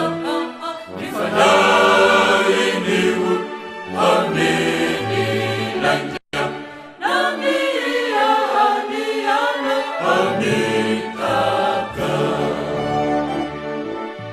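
Choir of men and women singing a Christian song, with a brief dropout in the sound about six seconds in.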